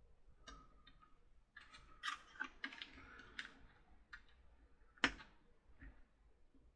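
Faint clicks and scratches of multimeter probe tips poking and scraping at hardened hot glue over an LED's leads, failing to get through to the metal. A sharper click comes about five seconds in.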